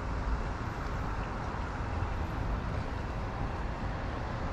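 Small boat's engine running at idle in gear, a steady low rumble as the boat creeps forward.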